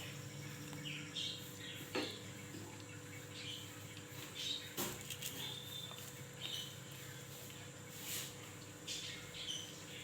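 Birds chirping in the background, short high calls repeating every second or so, with a few sharp knocks or clicks.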